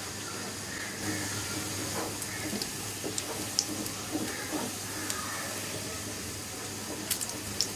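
Paratha shallow-frying in oil in a pan: a steady sizzle with scattered small pops and crackles.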